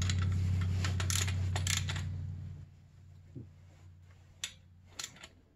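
Sharp metal clicks from a torque wrench as 6 mm power-valve bolts on an Arctic Cat ZR 600 two-stroke engine are torqued to about 7 ft-lbs. A low steady hum underneath dies away about halfway through.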